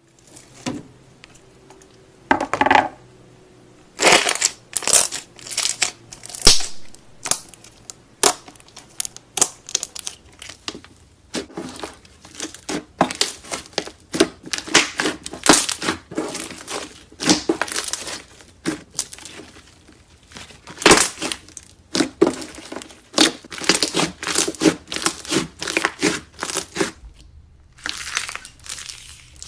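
Slime being squeezed and stretched by hand: a dense run of irregular crackles and pops, with a brief pause near the end.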